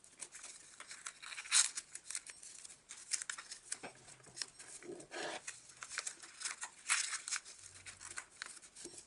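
Origami paper rustling and crinkling as fingers fold flaps, tuck them into a pocket and press the creases flat, in short irregular crackles.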